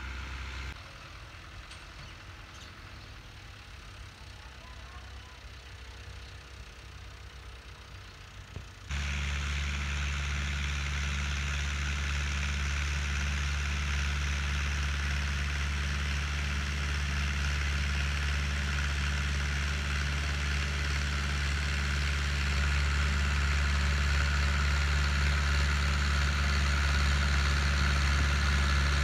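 Tractor's diesel engine running steadily under load while pulling a cotton planter. It is faint at first and becomes suddenly much louder about nine seconds in, then grows a little louder again near the end.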